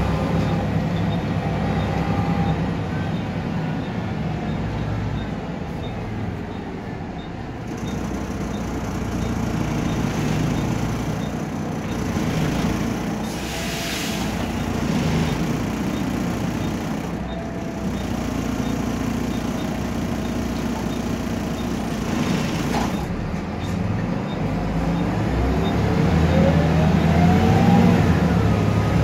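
Volvo B7RLE single-deck bus heard from inside the passenger saloon: its six-cylinder diesel engine running as the bus drives along. A short hiss of air comes about halfway through, and near the end the engine note rises steadily as the bus accelerates.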